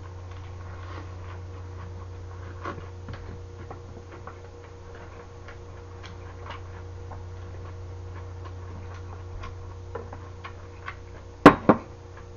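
Faint chewing and handling clicks over a steady low hum, then two sharp knocks close together near the end as a glass mug and bottle are set down on the table.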